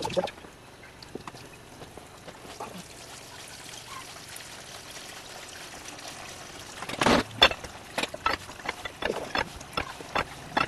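Fresh apple juice trickling steadily from a basket cider press into a plastic tub. About seven seconds in, a run of sharp clicks starts, about three a second, as the press's ratchet handle is worked to tighten the screw.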